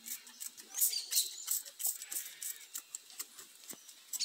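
Hand trigger spray bottle squirting liquid fertilizer: a quick series of short hissing sprays, about three a second.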